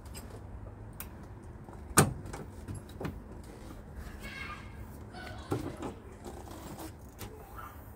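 Tools and parts being handled in a car's engine bay during work on the wiper linkage: scattered sharp metal and plastic clicks and knocks, with one loud clack about two seconds in and some scraping and rattling a few seconds later.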